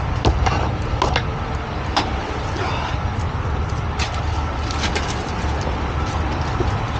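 A heavy tow truck's engine running steadily, with a scattering of sharp knocks over it.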